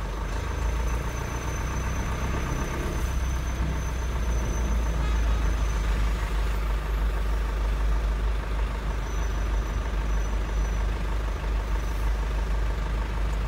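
Truck engine running steadily as it drives slowly, heard from inside the cab as a constant low rumble. A faint thin high whine comes and goes over it.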